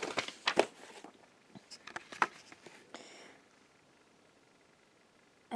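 A run of light taps, clicks and rustles as a cardboard puzzle calendar and a sheet of paper are handled and laid down, bunched in the first two seconds or so.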